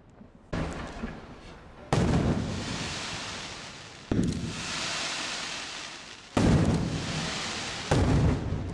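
Aerial firework shells bursting in the night sky: five sharp bangs a second or two apart, each dying away slowly with echo.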